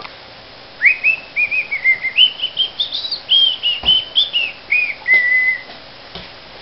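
A person whistling a quick run of short notes that climbs in pitch and then steps back down, ending on one longer held note.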